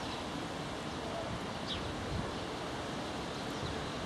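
Steady wind noise on the microphone, with one short bird chirp about halfway through.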